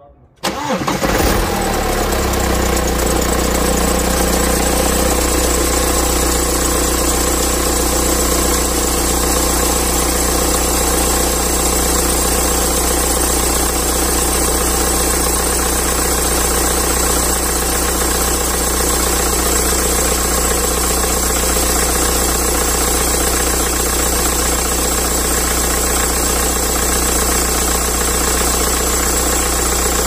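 BMW car engine started from cold about a second in, catching at once and then idling steadily. It runs with the squeal of the accessory drive, which the owner says could come from the old V-belt or from the tensioner pulley's bearing.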